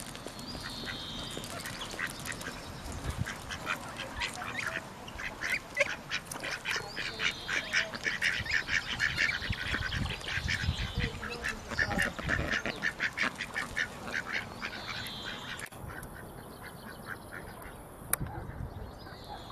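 Ducks quacking in quick, repeated calls, busiest in the middle and thinning out near the end, with a few brief high chirps.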